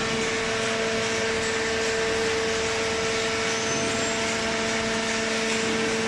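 Hydraulic cardboard baler's motor and pump unit running: a steady, unchanging machine hum with a constant tone over an even hiss.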